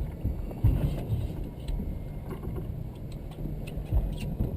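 Noise on a small fishing boat at sea: a ragged low rumble with irregular knocks and a few faint clicks.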